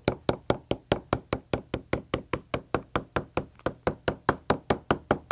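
Rawhide mallet tapping lightly and rapidly on a sewn leather holster on a stone slab, about five even knocks a second, tamping down the stitch line to sink the thread into its groove.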